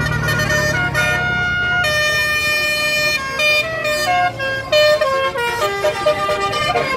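A bus 'telolet' multi-tone musical horn playing a tune of short, stepped held notes, with a low steady hum underneath that is strongest at the start.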